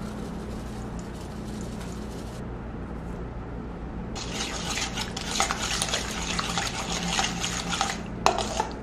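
A fork stirring thick mashed pumpkin in a stainless steel bowl, scraping and clinking against the metal, starting about four seconds in. Before that, salt is sprinkled in with only a faint rustle over a low steady hum.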